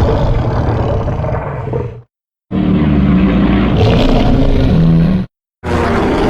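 King Kong giant-ape roar sound effects played one after another: a roar of about two seconds, a brief silence, a longer roar of nearly three seconds, another short silence, then a third roar starting near the end.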